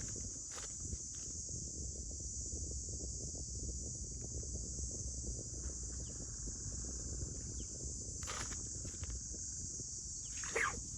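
Insects chirring steadily in one continuous high-pitched drone, over a low rumble. A brief louder sound comes near the end.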